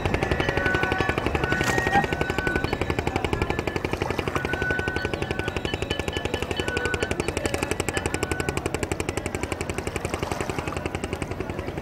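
Small boat engine chugging with a rapid, even beat.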